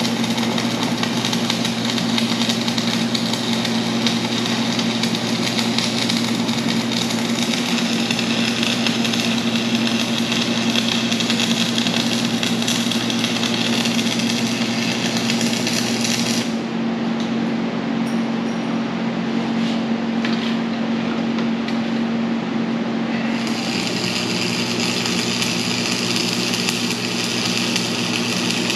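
MIG welder arc crackling as a bead is laid in, stopping for several seconds about two thirds of the way through and starting again near the end, over a steady low hum.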